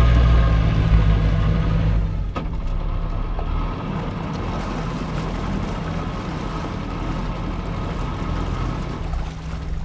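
Sailboat's engine running steadily while motoring slowly into an anchorage, louder for the first two seconds and then quieter, with a single click a little after two seconds in.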